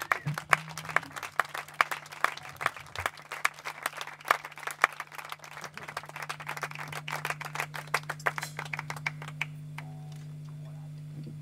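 Small seated audience applauding, with individual hand claps heard separately; the clapping thins out and stops about nine to ten seconds in. A steady low hum runs underneath.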